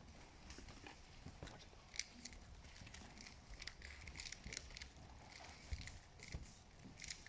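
Near silence with faint, scattered light clicks and taps, a few more of them around the middle.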